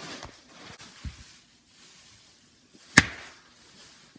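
Handling of a putty tub and orange slime on a glass tabletop: two faint knocks, then about three seconds in one sharp, loud smack.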